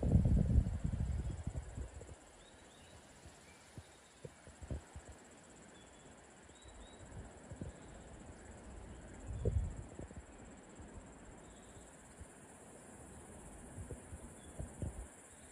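Steady high-pitched drone of insects. Wind buffets the microphone with low rumbling gusts at the start and again about two-thirds of the way through.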